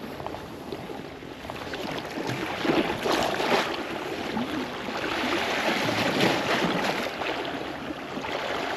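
Sea water washing and splashing against shore rocks, swelling about two seconds in and again near six seconds.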